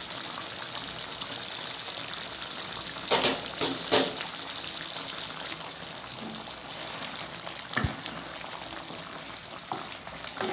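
Chicken pieces and tomatoes simmering in their own watery juices in a karahi: a steady bubbling hiss. A few sharp knocks stand out, two close together about three and four seconds in and one near eight seconds.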